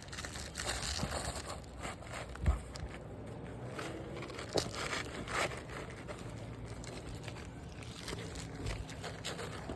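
Irregular crinkling and crackling of asphalt roof shingles being handled, with scattered sharp knocks, the loudest about two and a half seconds in.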